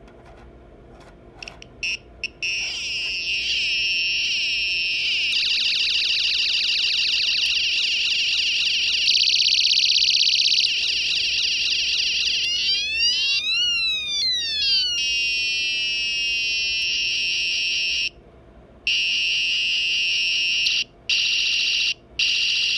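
Electronic sound-effect generator kit sounding through its small speaker, cycling through different effects: warbling, alarm-like electronic tones, then a stretch of quick rising-and-falling siren sweeps. Near the end the sound cuts out briefly several times as the effect is switched.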